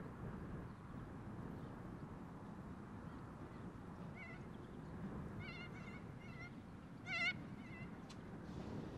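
A bird giving a run of short calls, about eight, starting about four seconds in and loudest just after seven seconds, over a low steady rumble.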